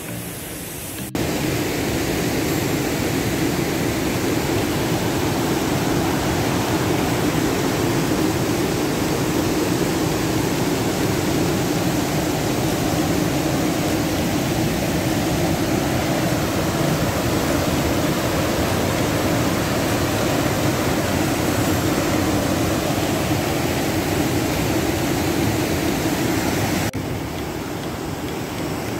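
A loud, steady rushing noise with no distinct events. It jumps up abruptly about a second in and drops abruptly near the end, as clips change.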